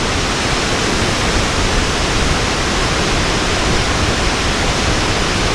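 A waterfall close by: falling water making a loud, steady, unbroken rush.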